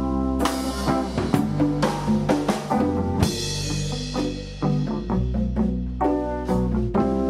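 Background music: a jazzy band with drum kit, bass and brass, a cymbal crash about three seconds in.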